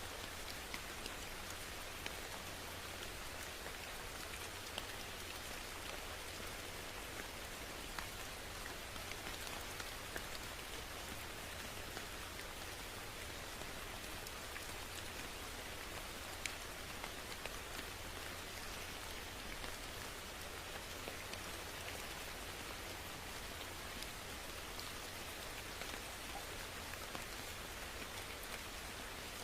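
Steady rain falling on a surface, a dense even hiss sprinkled with the sharper ticks of individual drops.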